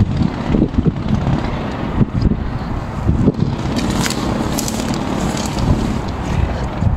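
Wind buffeting the microphone as a low, uneven rumble, with scattered knocks and a brief rustle about four seconds in.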